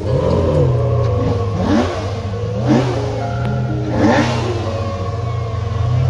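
Bugatti Divo's quad-turbo W16 engine running at low speed as the car creeps forward, with about four quick throttle blips, each rising and falling in pitch within a fraction of a second.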